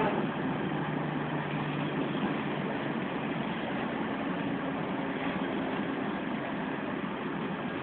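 Volvo B10M bus's mid-mounted six-cylinder diesel engine and drivetrain running, heard from inside the cabin while the bus moves: a low steady hum fades away over the first two seconds, leaving an even engine and road drone.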